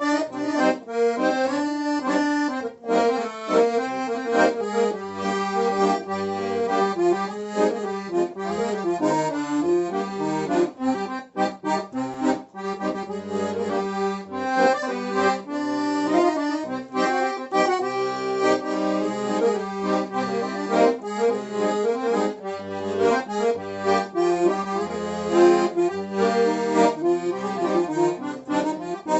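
An accordion being played, test-played after repair: a changing melody over a held low note and separate bass notes.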